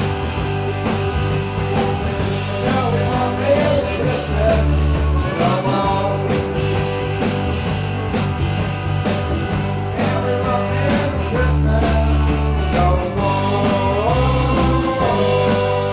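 Live rock band playing loud rock music over a steady drum beat, with a melodic line bending in pitch above it.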